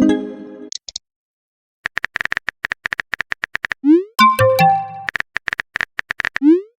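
Phone messaging sound effects in a repeating cycle: a run of rapid keyboard-tap clicks, a short rising whoosh as a message is sent, then a brief electronic notification chime. The cycle plays twice, with a moment of silence after the first chime.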